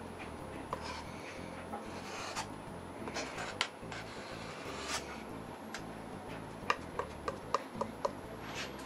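Painter's knife scraping and smoothing a bead of sealant across a foam board: soft rubbing strokes, followed near the end by a quick run of light clicks.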